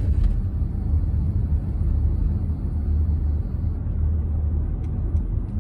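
Steady low rumble of a car in motion, heard from inside the cabin: engine and tyre road noise.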